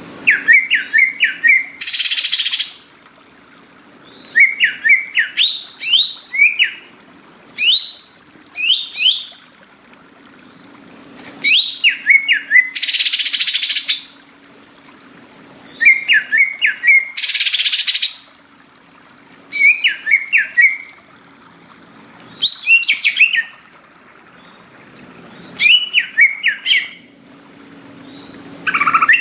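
Green leafbird (cucak ijo) singing in energetic bursts of quick, rapidly rising and falling whistled chirps, repeated every second or two. Three long harsh rasping notes break in among them: near the start, and twice in the middle.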